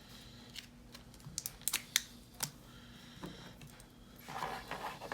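Light, sharp clicks and taps of a lock cylinder and small metal tools being handled, with a few quick clicks in the middle and a short rustle near the end.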